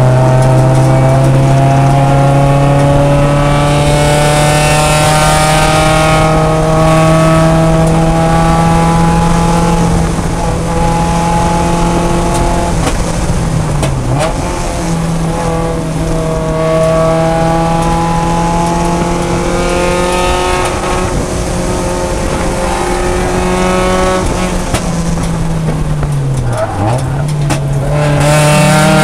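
Mazda Miata race car's four-cylinder engine heard from inside the stripped cabin, running at full throttle with its pitch climbing slowly for about ten seconds. It then eases and holds under lift and braking, with sharp dips and recoveries in pitch twice, and climbs again near the end.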